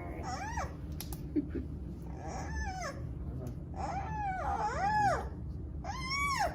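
Month-old giant panda cub squealing: four short calls, each rising and then falling in pitch, the longest one about four seconds in.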